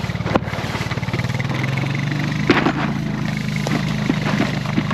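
An engine running steadily, with a few short knocks over it, the loudest about two and a half seconds in.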